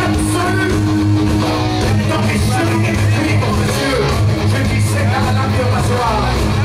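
Live rock band playing loudly: distorted electric guitars over bass and drums, with no break.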